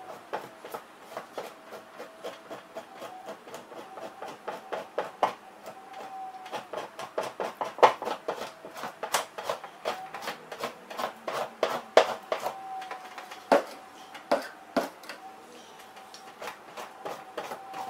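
Two-handled fleshing knife scraping fat and flesh off a beaver pelt stretched over a fleshing board, in quick repeated strokes about three a second, with a few louder knocks.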